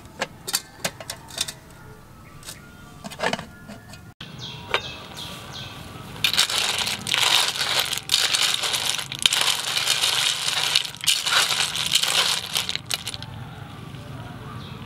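Metal clinks of an aluminium pot lid against the pot, then a spoon stirring a pot full of small snails: the shells clatter and rattle loudly against the aluminium for several seconds. Near the end this gives way to a quieter steady hiss of the pot simmering.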